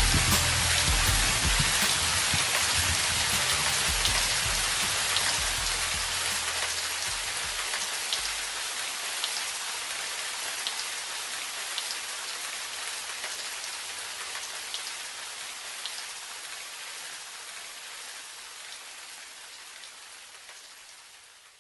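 Steady rain falling, with scattered drop ticks, slowly fading out to nothing at the end. Low bass notes die away in the first eight seconds or so.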